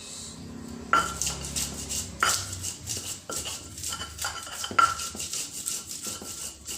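Pestle grinding and pounding chilies in a mortar (ulekan and cobek): a quick scraping, clattering rub, broken by several sharp, ringing knocks about a second apart.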